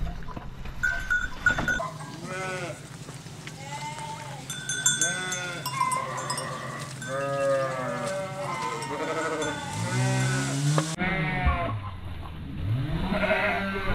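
A flock of sheep bleating, many calls overlapping one another, over a steady low hum.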